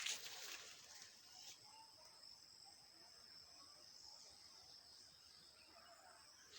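Near silence: faint rural outdoor ambience with a thin, steady high-pitched insect trill.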